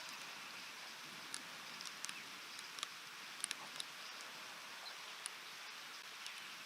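Steady rain hiss, with scattered sharp taps of drops striking close to the microphone.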